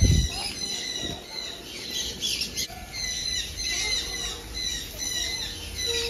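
Many small aviary birds chirping, a steady stream of short high notes repeating several times a second, with a low thump right at the start.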